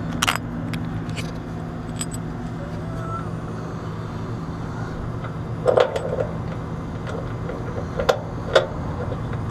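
Steel bolt and washer clinking as they are handled and fitted through an air-conditioner compressor's mounting foot: a few sharp metal clinks, grouped about halfway through and twice more near the end. A steady low machine hum runs underneath.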